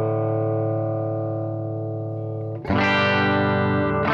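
Electric guitar played through a Marshall SV20C valve amp: a held chord rings and slowly fades, then a new chord is struck about two and a half seconds in.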